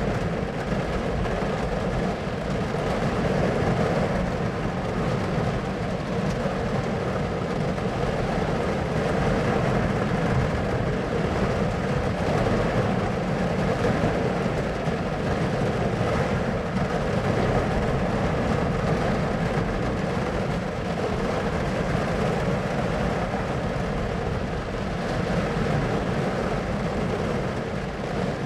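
Steady, even rumbling noise, heaviest in the low end, with no single sound standing out.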